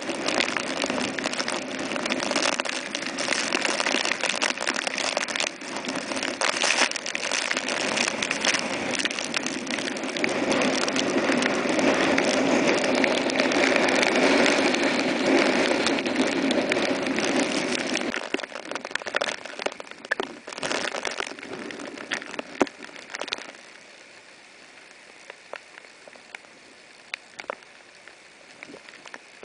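Hurricane-force wind and driving rain, with many sharp ticks of raindrops striking. It is loud for most of the time, then dies away over a few seconds to a much quieter patter of scattered drops near the end.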